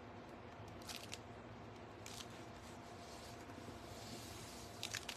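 Faint crinkles of a plastic piping bag being squeezed as fake whipped cream is piped, a few short strokes about a second in, at two seconds and near the end, over a steady low hum.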